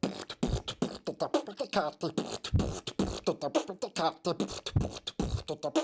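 A voice making rapid mouth percussion, clicks and pops mixed with short voiced syllables that bend in pitch, like beatboxing.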